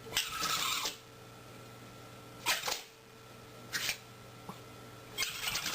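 An animal sneezing repeatedly, four sharp sneezes a second or so apart, the first and last a little longer.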